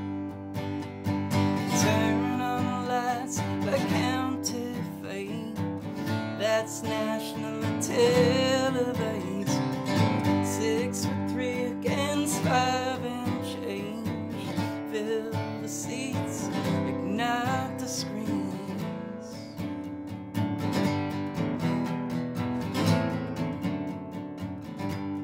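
Acoustic guitar strummed steadily in a folk-country song, with a man's voice singing phrases over it.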